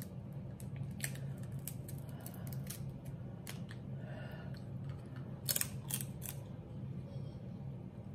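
Crab leg shells being cracked and snapped apart by hand: a string of sharp, crisp clicks and cracks. The loudest few come together from about five and a half to six and a half seconds in, over a steady low hum.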